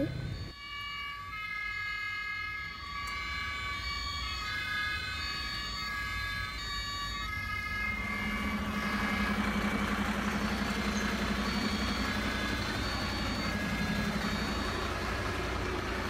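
Electronic fire-engine siren sounding in stepping tones. About halfway through it gives way to a steady low engine hum under a hiss.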